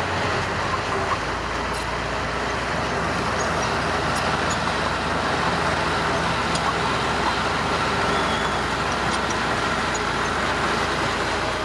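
Diesel engines of heavy earthmoving machinery, dump truck and bulldozer, running steadily.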